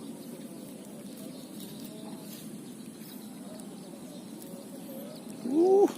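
Open rice-field ambience: a steady low hum with faint short bird calls. Near the end, a man's brief loud exclamation cuts in.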